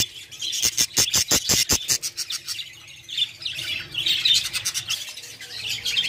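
Budgerigars in a nest pot calling: a fast run of short raspy calls, about seven a second, for the first two seconds, then softer high chirping chatter.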